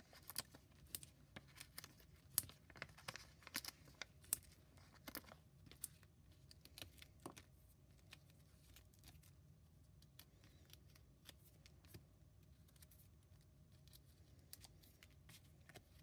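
Faint clicks and rustles of paper handling as foam adhesive dimensionals are peeled from their backing sheet and pressed onto a cardstock piece. The sounds come thick in the first six seconds, then thin out to occasional ticks.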